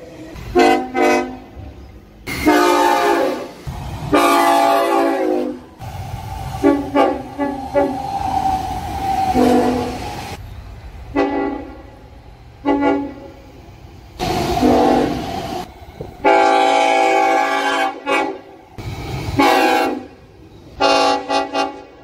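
Tilt Train horn sounding again and again: quick groups of short toots and several long blasts of a second or two. Between the blasts the train's running noise can be heard.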